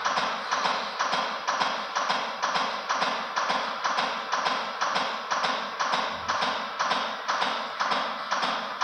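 Steady chest compressions on a CPR training manikin, a regular tapping at about two strokes a second.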